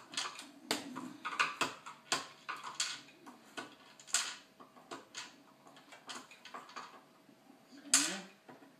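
Phillips screwdriver working screws into the sheet-metal chassis of a Dell PowerVault PV-122T tape autoloader: irregular small metallic clicks and scrapes, with a louder rasp near the end.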